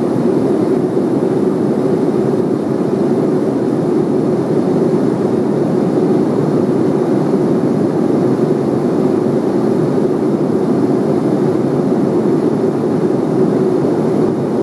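Steady cabin noise of an aircraft in cruise flight: engine and airflow noise heard from inside the cabin, an even, unchanging low rush.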